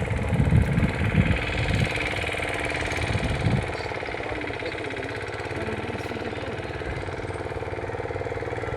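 A small engine running steadily at an even speed, with low buffeting thuds over the first three or four seconds.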